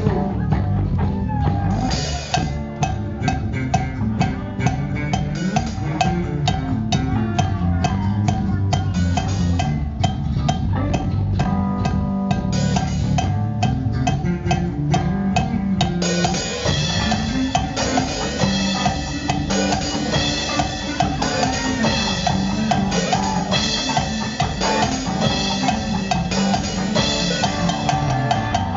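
Rock music driven by a drum kit, with a busy bass line and regular drum hits. About halfway through it gets fuller and brighter as cymbals and more instruments come in.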